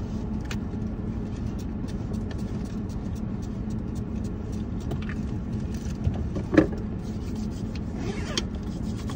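Steady low hum inside a car, with scattered small clicks and handling noises. There is a sharper knock about six and a half seconds in and a brief rustle near the end.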